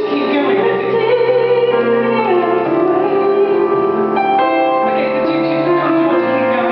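A singer singing held, sustained notes over piano accompaniment.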